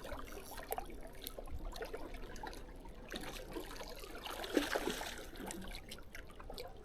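Faint lake water lapping, with small scattered splashes and clicks.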